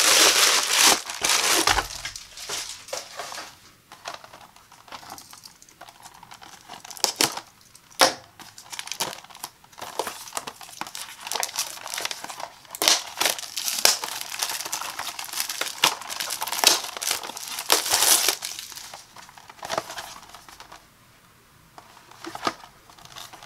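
Plastic bubble mailer crinkling as hands open it, then a cardboard product box being handled and its flaps pulled open, with many sharp crackles and snaps. It grows quieter near the end.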